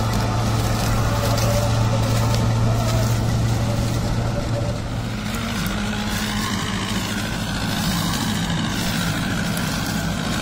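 Tractor diesel engine running steadily under load while it drives a straw chopper through wheat stubble, the chopper's rotor and blower whirring with it. About halfway through the sound changes: the deep hum gives way to a wavering whine that rises and falls.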